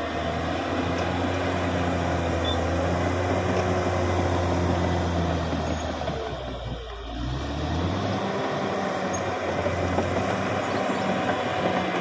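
Caterpillar D6R XL crawler dozer's diesel engine running steadily while the machine works. About halfway through, the engine note drops briefly and then climbs back up.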